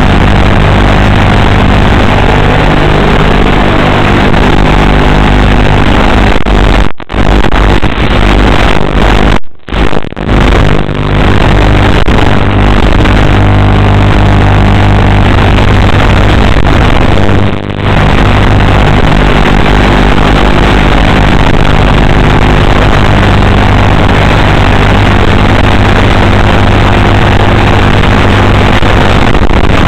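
Motor and propeller of an FPV model plane heard through its onboard camera's microphone: a loud, distorted, steady drone. It drops out briefly several times between about 7 and 18 seconds in.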